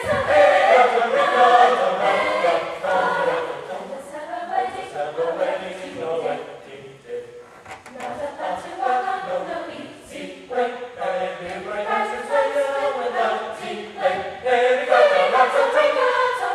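High school mixed chorus, boys' and girls' voices, singing a song in parts. The singing is loud at the start, softer around the middle, and swells again near the end.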